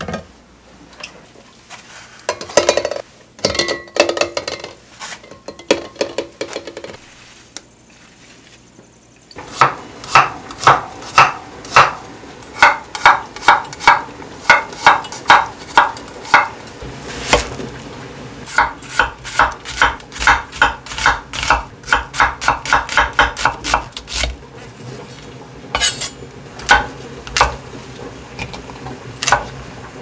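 Kitchen knife slicing garlic cloves on a wooden cutting board: a steady run of sharp chopping taps, about two to three a second, starting about nine seconds in, then thinning to occasional cuts near the end. Before the chopping, light clatter of vegetables being handled.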